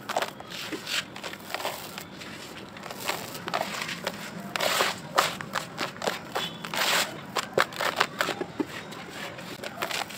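Dry, powdery sandy clumps crumbled between the fingers and falling into a basin of damp soil: irregular crunching and crackling, with short gritty hissing pours.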